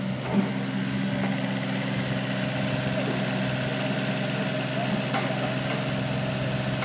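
Diesel engine of a TESCAR CF3 mini piling rig running steadily at a constant pitch, with a brief louder knock just after it starts.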